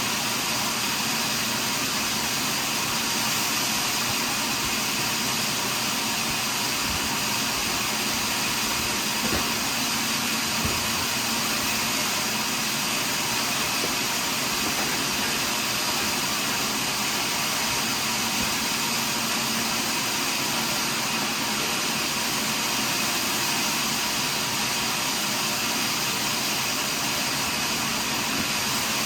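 Portable sawmill's saw running steadily through a large pine log, an even, unbroken machine noise.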